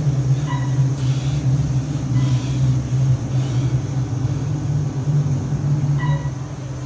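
Glass passenger elevator running with a steady low hum. A short ding sounds shortly after the start and again about six seconds in, as the hum drops away when the car slows to a stop.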